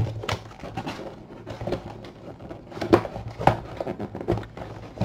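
Hands opening and handling a cardboard shipping box: scattered knocks and clicks with light rustling, the sharpest knocks about three and three and a half seconds in.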